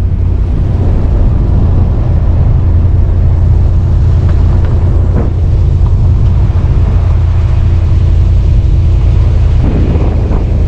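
1971 Corvette's V8 engine running steadily with a deep, even drone, with a couple of faint clicks about halfway.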